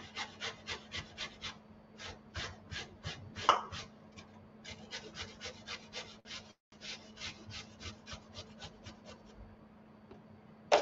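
Zucchini being grated by hand on a grater: quick, rhythmic rasping strokes, about five a second, broken by short pauses and thinning out near the end.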